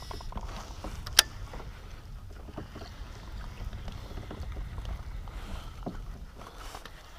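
Kayak on the water with a low rumble and scattered small knocks of gear against the hull. One sharp click about a second in.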